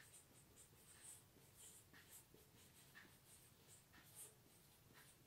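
Faint strokes of a dry-erase marker writing on a whiteboard: a series of short, light squeaks and scratches.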